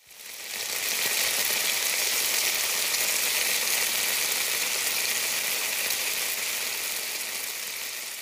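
Igado, pork and liver in a soy-based sauce, sizzling in a pan. A steady hiss fades in over the first second and eases slightly toward the end.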